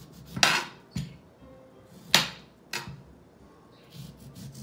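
A knife slicing through a whole lemon on a glass cutting board: two rasping cuts about a second and a half apart, each followed by a sharp click of the blade against the glass.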